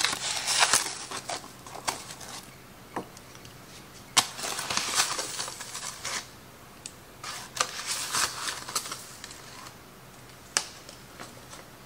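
Measuring spoon scooping powdered milk from a plastic pouch and tipping it into a mixing bowl: stretches of rustling and scraping with a few sharp clicks of the spoon.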